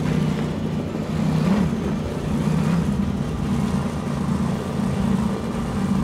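Twin Mercury Racing 1100 engines of a 46-foot Cigarette powerboat running at speed: a steady drone, with a brief dip and rise in pitch about a second and a half in.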